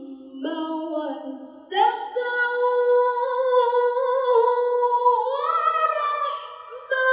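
A woman reciting the Qur'an in melodic tilawah style into a microphone, holding long ornamented notes that slide up and down in pitch. There are short breaks about half a second in and just before two seconds in.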